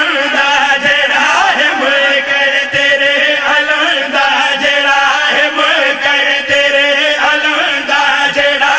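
Group of men chanting a devotional qaseeda in unison through an amplified microphone, their voices rising and falling in a melody over a steady beat of sharp strikes.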